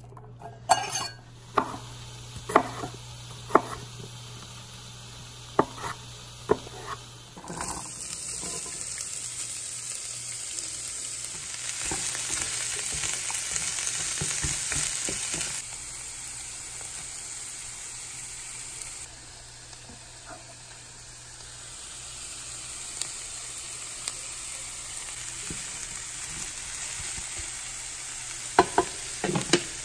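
A knife chopping an onion on a wooden cutting board, a handful of sharp knocks. Then diced onion, carrots, celery and mushrooms sizzling as they fry in a skillet and are stirred, the sizzle loudest about halfway through, with a few knocks of the utensil near the end.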